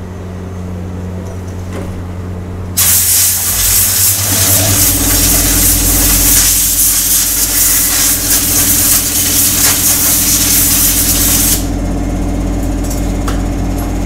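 Compressed-air blow gun blasting a petrol-washed motorcycle air filter element to dry it: a loud, steady hiss that starts abruptly about three seconds in and cuts off sharply about nine seconds later. A steady low hum comes in a couple of seconds after the blast starts and keeps going.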